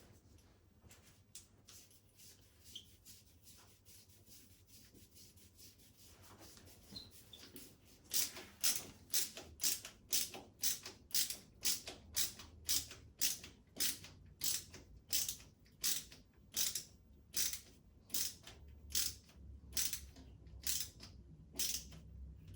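A screw being turned by hand with a screwdriver into a plastic wall plug: a regular scraping stroke about twice a second from about eight seconds in, after a quieter stretch of small clicks.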